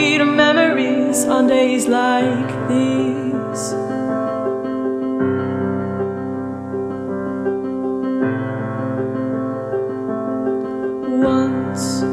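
A song: a singing voice over sustained keyboard chords. The voice drops out after about two seconds, and the held chords go on alone, changing about every three seconds.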